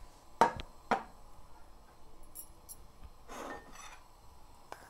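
Kitchenware being handled: two sharp knocks about half a second apart, then a short rustle and a faint click.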